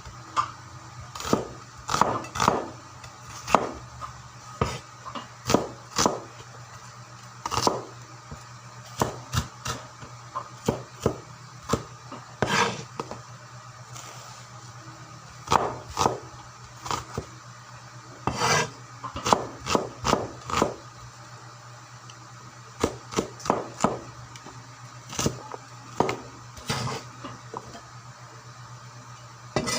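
A knife knocking on a wooden cutting board in irregular strokes, single and in short clusters with pauses between, over a steady low hum.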